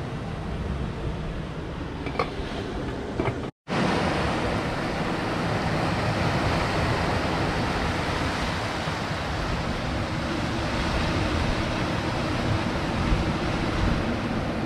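First a steady rush from a camping stove burning under a pot of boiling seawater with crab steaming in it; this cuts off suddenly about three and a half seconds in. Then sea surf washing and breaking over rocks, a steady rushing noise.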